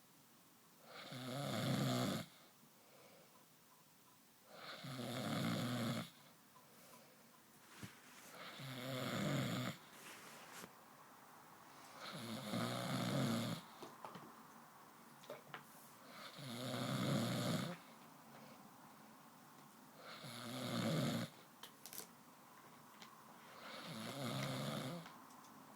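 Steady, rhythmic snoring from a sleeper: seven loud snores about four seconds apart, each lasting a second or so, with quiet breathing between them.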